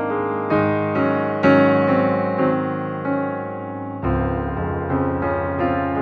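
Background music: melody notes struck about every half second and dying away over held low chords, moving to a new chord about four seconds in.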